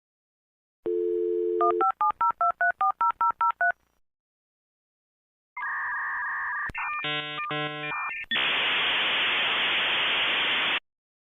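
Dial-up modem connecting over a phone line: a dial tone, a quick run of about ten touch-tone digits, then after a pause the modem's handshake tones and chirps, ending in a long hiss.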